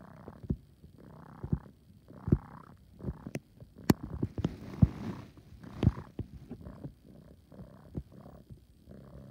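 Kitten purring loudly in a wheezy, rhythmic in-and-out like an air pump, about one breath a second, with a couple of sharp clicks about three to four seconds in.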